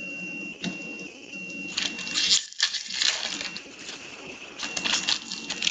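Foil trading-card pack wrapper crinkling and tearing as a hockey card pack is opened by hand, in several short crackly bursts about two seconds in, around three seconds, and again near the end.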